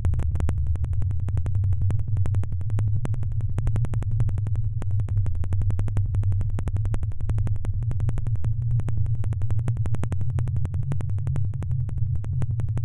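Experimental electronic sound art: a heavy low drone under a dense stream of rapid, irregular crackling clicks that runs steadily throughout.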